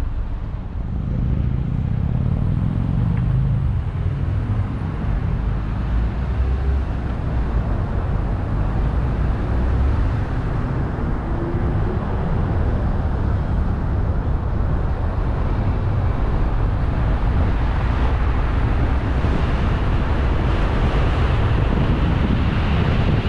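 A car driving on a paved road: steady engine rumble and tyre noise. The noise grows louder and hissier in the last few seconds as the car picks up speed.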